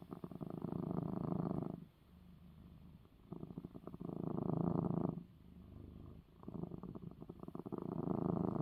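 Domestic cat purring while being stroked, in a slow breathing rhythm: a louder stretch of about two seconds, then a quieter stretch of a second or so, three times over.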